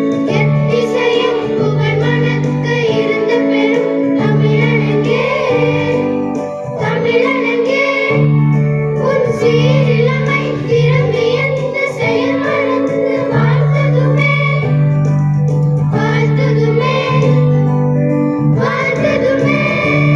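A group of schoolgirls singing together through microphones and a PA, over long held electronic keyboard chords.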